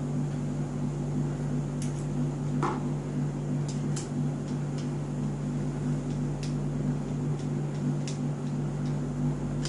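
Steady low mechanical hum, with scattered faint clicks of a screwdriver turning the screws of a metal padlock.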